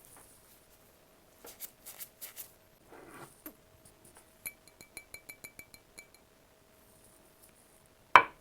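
Dishes and utensils being handled at close range: a few light clicks and a short rustle, then a quick even run of about a dozen sharp ringing ticks, then one loud knock near the end.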